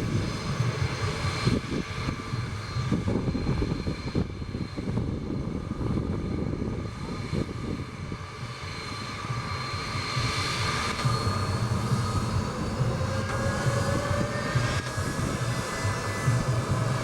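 Airbus A330-200 jet engines running: a steady rumble with a high whine, several tones of which rise gently in pitch in the last few seconds.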